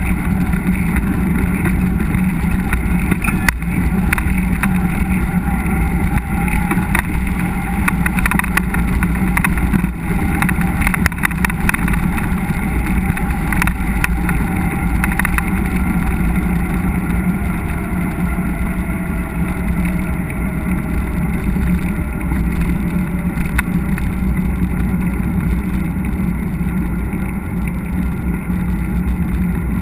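Steady wind and riding rumble picked up by a GoPro action camera on a mountain bike moving along a trail, with scattered clicks and rattles.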